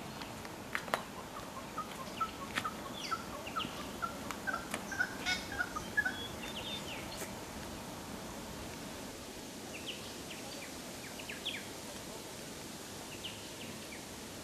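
Wild birds calling: a quick series of short chattering notes that grows louder over the first six seconds, then scattered higher chirps, over a steady background hiss.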